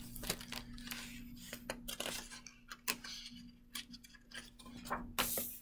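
Pages of a picture book being turned and handled: scattered paper rustles and light clicks, with a longer swish near the end.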